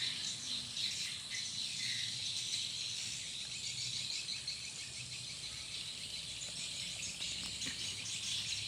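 Swiftlets twittering: many small high chirps massed into a steady, dense chorus.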